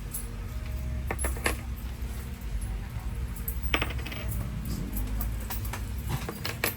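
Coins clinking on a hard counter: a few separate clinks in the first seconds, a louder ringing one near four seconds in, then a quick run of clinks near the end, over a low steady hum.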